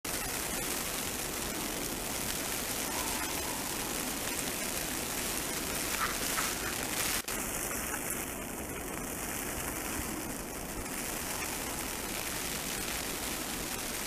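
Steady, even hiss of blizzard wind, with no distinct events; it drops out for an instant about seven seconds in.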